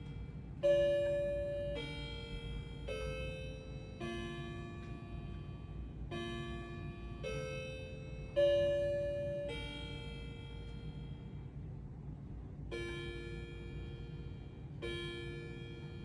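Grandfather clock chiming: a tune of struck chime notes about one a second, each ringing on and dying away. After a short pause near the end, single notes of the same pitch strike about two seconds apart, the clock counting the hour.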